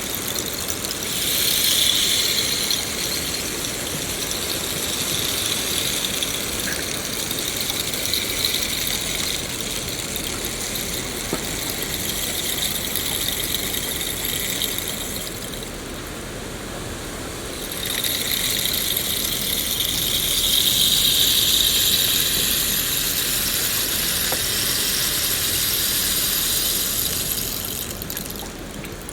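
Steady rain falling, a continuous hiss with a high, bright edge that swells for a few seconds about two seconds in, dips briefly a little past halfway, then swells again.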